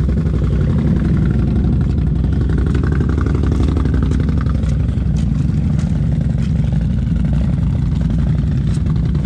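Can-Am Outlander 1000 XMR ATV's V-twin engine running loud and steady at a fairly constant pitch.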